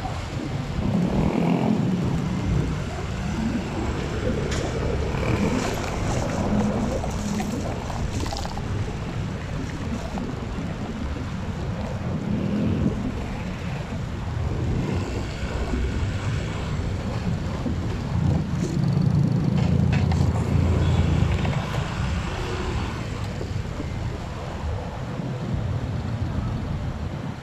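Vehicle driving slowly: a steady low engine and road rumble with some wind noise. The rumble swells for a few seconds a little past the middle.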